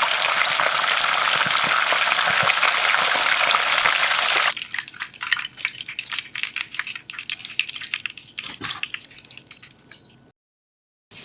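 Tilapia frying in hot oil: a loud, steady sizzle that cuts abruptly about four and a half seconds in to quieter, scattered crackles and pops, followed by a moment of dead silence near the end.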